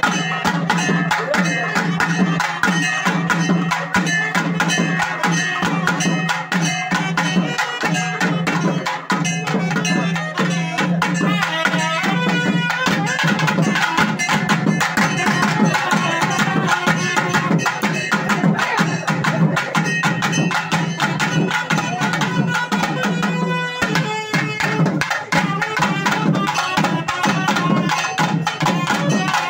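Traditional South Indian music: fast, dense drumming over a steady low drone, with a melody line above.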